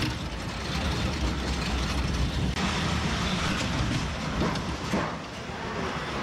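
Amusement-park ride car running along its track with a steady low rumble. A hissing noise joins about two and a half seconds in.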